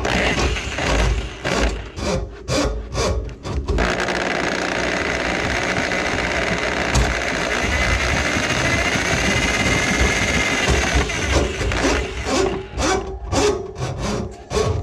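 Handheld electric drum drain auger running as its cable works into a grease-clogged kitchen sink drain line. It runs in short rapid bursts for about four seconds, then steadily for about seven seconds with a faint wavering whine, then in short bursts again.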